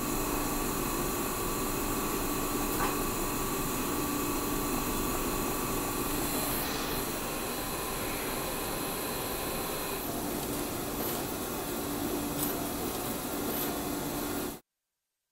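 Pick-and-place machine running: a steady mechanical whir with a few faint ticks, changing in tone about ten seconds in. The sound cuts off abruptly to silence near the end.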